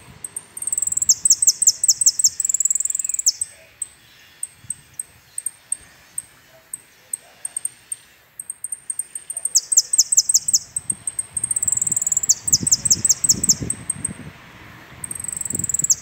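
A caged saffron finch (jilguero) singing its full song: loud, high-pitched phrases, each a held note breaking into a fast run of downward-sweeping notes, about six a second. The phrases come near the start, twice in the second half and once more at the very end, with single chirps between.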